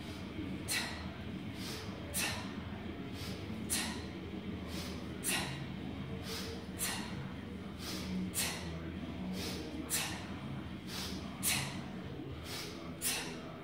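Sharp, hissing breaths forced out in rhythm with one-arm kettlebell swings, about three short breaths every two seconds, over a steady low room hum.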